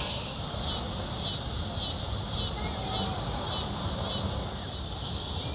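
Summer insect chorus: a steady high buzz that pulses about twice a second, over a low steady rumble.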